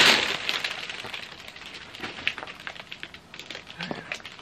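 Plastic packaging crinkling and crackling as a poly mailer and a clear plastic clothing bag are handled: a loud rustle at the start, then scattered soft crackles.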